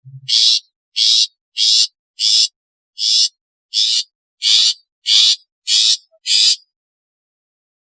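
Long-tailed shrike giving a series of harsh, rasping calls, about ten in a row at a steady pace of one every half second or so, stopping near the end.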